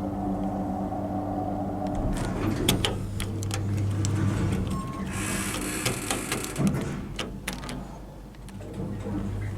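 GEC Express hydraulic lift in operation: a steady motor hum that stops about two seconds in, then clicks and knocks from the car and its doors, with a short hiss about halfway through.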